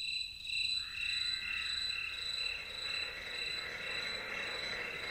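Nature-sound opening of an electronic ambient track: a chorus of crickets and frogs, a high chirring that pulses about twice a second, with a soft synthesizer wash fading in about a second in.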